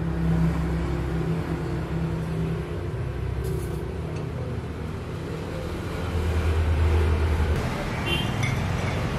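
Street traffic and a nearby engine running: a low, steady hum that swells for a second or so about six seconds in.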